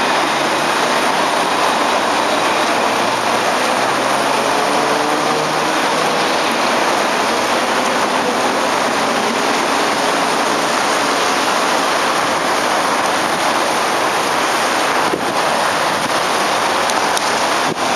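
Steady hiss of rain and wet street noise. During the first several seconds a faint, slowly rising whine comes through from the electric motors of a passing Citadis tram.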